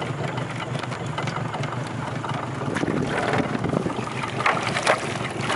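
Wind buffeting the microphone over open water, a steady rumble, with water splashing and sloshing in the second half.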